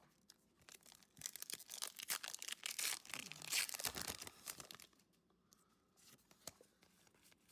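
Foil Pokémon booster pack wrapper being torn open and crinkled: a dense run of crackling and tearing from about a second in until about five seconds in.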